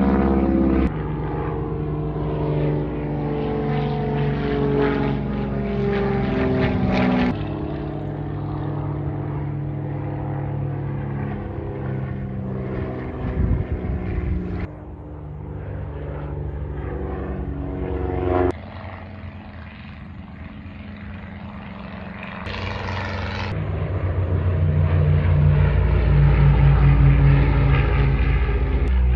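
Propeller-driven warbird aircraft flying over, engine note falling in pitch as they pass, with the sound jumping abruptly several times. It swells to its loudest near the end as another plane comes close.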